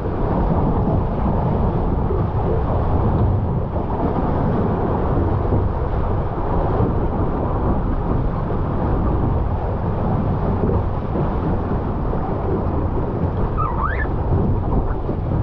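Steady low rumbling of wind buffeting the microphone and water rushing past a GP14 sailing dinghy under way in racing conditions. A short rising squeak comes near the end.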